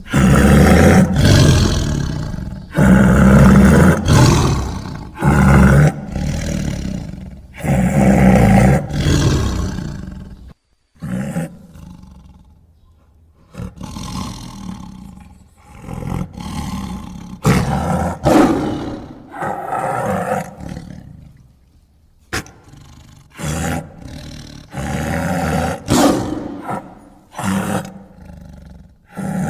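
A string of loud, rough monster-style roar sound effects, one after another every second or two, with a quieter stretch about a third of the way through before the roars start up again.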